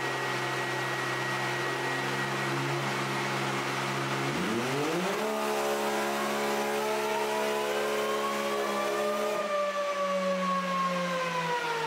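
A 2020 Can-Am Maverick X3 Turbo's engine runs on a chassis dyno. It idles, then about four seconds in it revs sharply up and holds a steady high pitch under load while a whine climbs slowly with wheel speed. Near the end the throttle closes and the engine and whine fall away as the drivetrain spins down.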